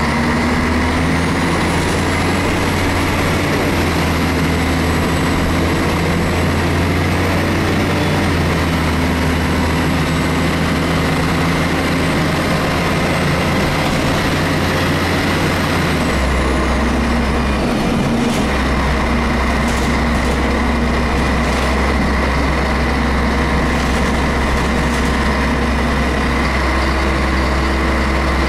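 Scania DSC11 11-litre six-cylinder turbo diesel of a Scania L113 bus running under way, heard from the seats right above the rear engine, a steady drone with a high whine over it. About halfway through, the whine glides down and the engine note drops, then the engine picks up again. Loose body panels add light rattles.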